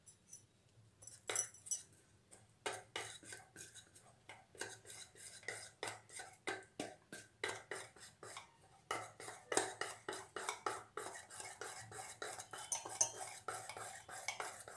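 Wire whisk beating cake batter in a stainless steel bowl, its wires clinking and scraping against the sides. A few strokes come at first, then a steady run of about three to four strokes a second.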